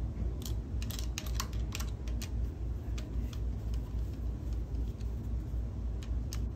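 Screwdriver tightening the screw of a metal mounting bracket on an electric motor: a run of small clicks and scrapes, most of them in the first two seconds or so, then a few scattered ones, over a steady low rumble.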